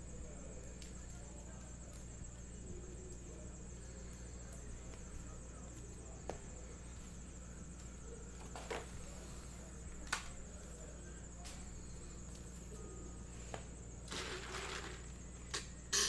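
Trading card packs and cards being handled: scattered light clicks and a brief rustle of packaging near the end, over a steady low electrical hum.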